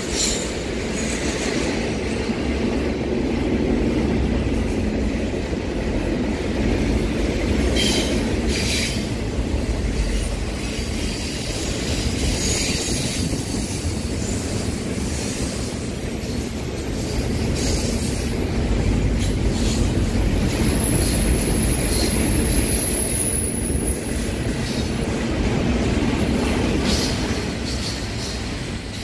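Double-stack container train's well cars rolling past at speed: a steady heavy rumble of steel wheels on rail. Thin, high-pitched wheel squeals come and go several times, with a few clicks from the wheels over the rail.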